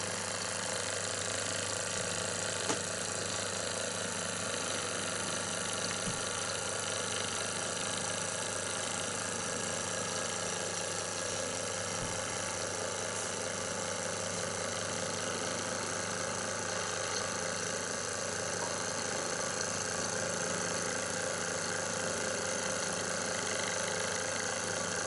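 Philcraft Penny miniature oscillating engine running steadily on air from a small electric compressor built into its base, with a fast, even mechanical chatter and hum.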